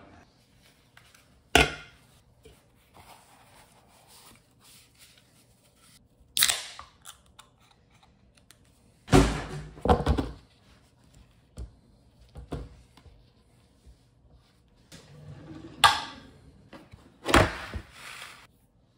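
A handful of separate knocks and thuds a few seconds apart, from a plastic tub and a plastic cutting board being handled and set down on a stone countertop.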